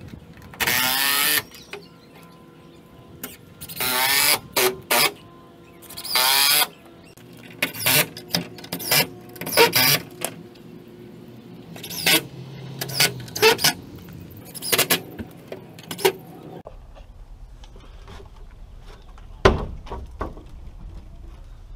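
Cordless drill driving screws into a wooden fence: a run of short whirring bursts, each about half a second to a second long, the motor's pitch wavering as each screw goes in. One sharp knock comes near the end.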